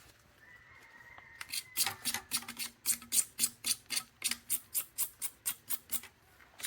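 Hacksaw blade sawing, evenly spaced rasping strokes about four a second that start about a second and a half in and stop just before the end.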